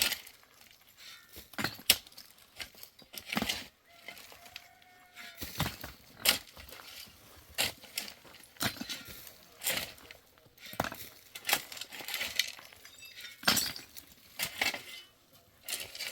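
Irregular sharp clinks and knocks of hard objects striking one another, roughly one a second, with short pauses between.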